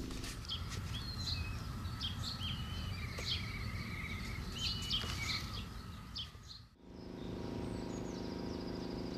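Small birds chirping and trilling, many short calls over a low outdoor rumble. About seven seconds in the sound cuts briefly and gives way to a steady low hum with a few faint bird calls.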